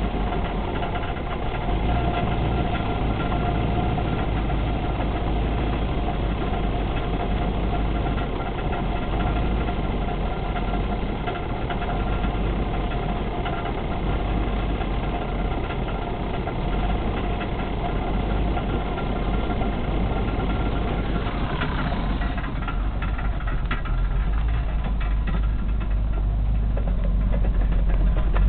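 A limousine's engine running steadily, with a strong low rumble and a steady whine over it. The whine fades out about three-quarters of the way through, and the sound becomes lower and duller.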